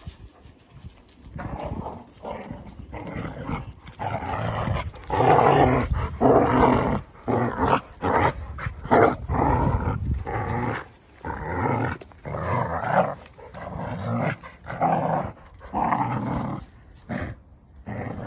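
A corgi and a Labrador growling at each other while play-fighting, in a run of irregular growls that starts about a second and a half in and is loudest in the middle.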